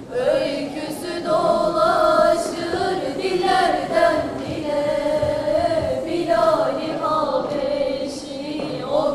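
Girls' vocal group singing an ilahi (Islamic hymn) together a cappella, in long held, gliding melodic lines with no instruments heard.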